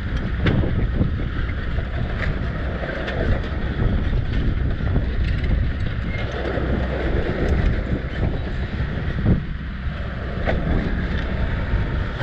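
Wind buffeting the microphone over a steady low rumble, with a few faint clicks.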